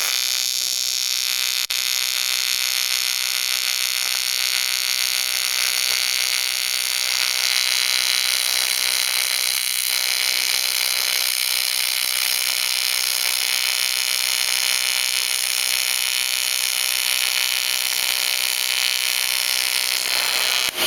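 AC TIG welding arc on aluminium, giving a steady high-pitched buzz as a bead is laid. It comes from a Lotos TIG200 with the amperage and foot pedal turned all the way up, and cuts off just before the end.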